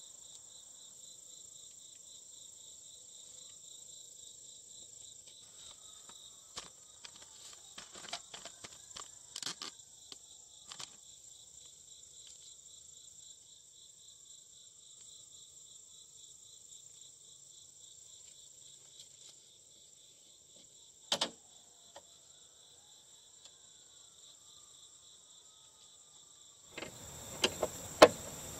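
Steady, high, finely pulsing insect chirping, with a few sharp clicks and knocks from work inside the car door as the window glass is fitted back onto its new regulator; the handling clatter gets busier and louder near the end.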